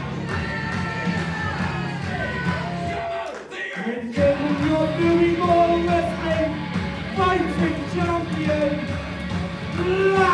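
Music with a singing voice over a steady beat; it dips briefly about three seconds in, then comes back louder.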